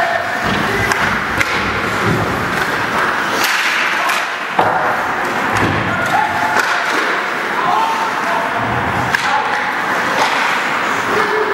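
Ice hockey game sounds: skates scraping on the ice under a steady rink noise, with many sharp knocks and clacks scattered through it from sticks, the puck and the boards.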